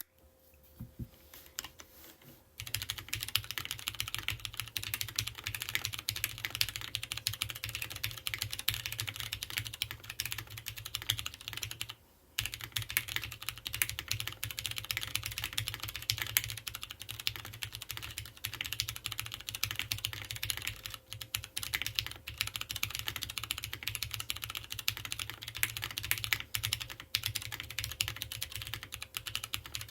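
Custom mechanical keyboard with Cherry MX Brown tactile switches on a POM plate and GMK keycaps, typed on quickly and continuously from about two and a half seconds in, with a brief pause near the middle.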